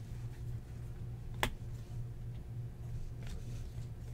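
Trading cards being handled, with faint ticks and one sharp click about a second and a half in, over a steady low hum.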